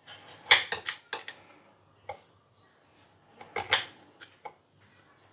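Kitchen knife cutting a shallot on a plate, the blade clacking against the plate in two short bursts of several sharp knocks, one at the start and one past the middle.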